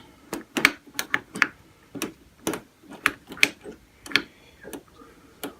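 Sharp, irregular mechanical clicks, about two or three a second and some in close pairs, from a reversible tapping chuck being worked by hand.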